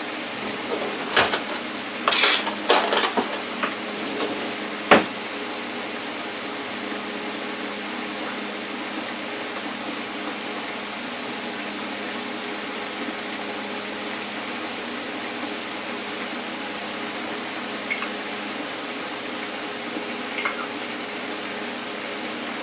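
Small electric deep fryer with seafood frying in it, the oil bubbling and sizzling steadily. A quick run of dish and utensil clatters comes in the first few seconds, and there are two faint clinks later on.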